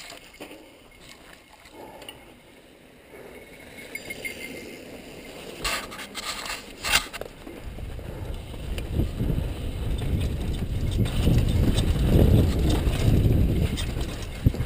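Mountain bike descending a rough dirt trail. Quiet at first, then wind buffeting the microphone and the bike rattling over the ground grow steadily louder as it picks up speed, with a few sharp knocks about six to seven seconds in.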